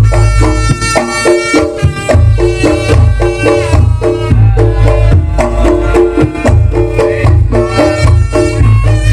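Loud traditional Javanese reog music: drums and gong-chime percussion in a steady repeating pattern under a reedy wind melody, with a heavy bass throughout.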